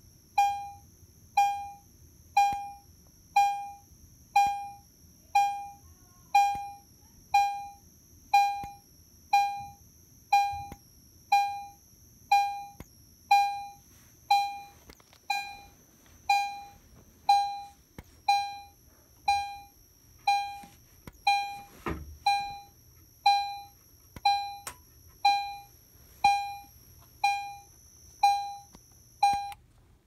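EST Genesis fire alarm chime sounding, one electronic chime note about once a second, each note fading quickly, with a faint steady high whine underneath.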